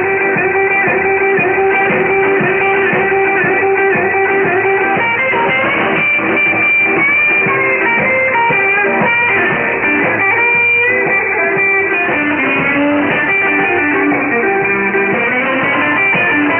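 Guitar music from a pirate shortwave broadcast on 6925 kHz, received in AM on a Perseus software-defined receiver. The sound is narrow and band-limited, with nothing above about 3.5 kHz.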